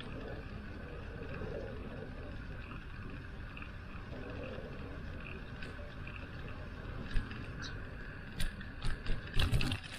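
Steady rushing noise of a bicycle ride, wind on the microphone and tyre noise, with a run of sharp clicks and knocks starting about seven seconds in and thickest near the end.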